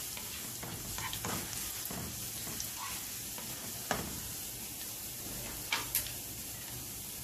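Chopped garlic sizzling in hot oil in a non-stick wok, stirred with a spatula, as a steady hiss. A few light knocks come through, the clearest about four and six seconds in.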